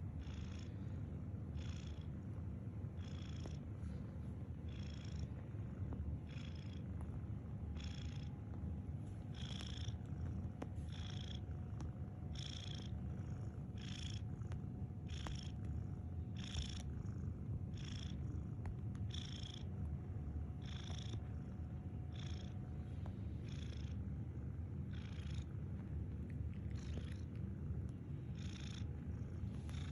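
Domestic cat snoring: a steady low rumble with a short, hissy breath roughly every second.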